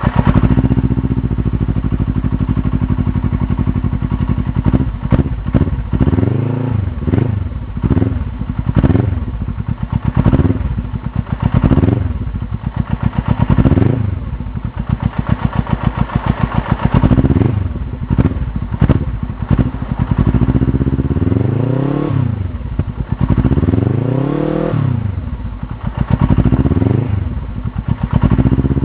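Suzuki GS500E air-cooled parallel-twin engine breathing through an open race silencer, idling briefly and then blipped repeatedly: a dozen or so quick revs that rise and fall back, with a few longer, higher revs near the end.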